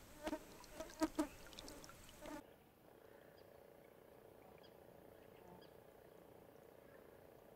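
A run of short, pitched animal calls, the loudest about a second in, stopping abruptly after about two and a half seconds. Then a faint steady hum with small high chirps.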